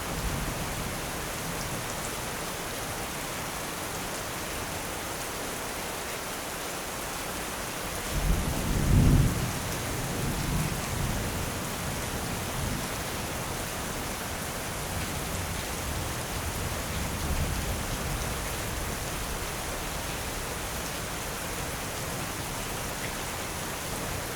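Steady heavy rain falling, with a loud thunderclap rumbling in about eight seconds in, then rolling away in lower rumbles for several seconds.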